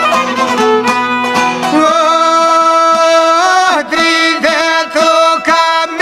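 Albanian traditional folk music: a violin plays an ornamented, bending melody over string accompaniment. A low held drone underneath drops out about two seconds in.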